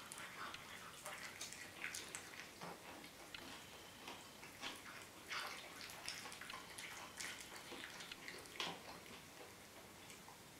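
A cat eating wet food from a dish: faint, irregular wet smacks and clicks of chewing and lapping, a few each second.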